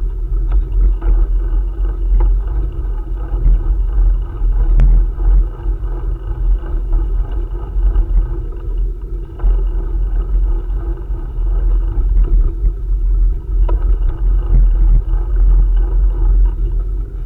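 Steady, heavy low rumble of wind buffeting a moving camera's microphone, with a few faint clicks and knocks.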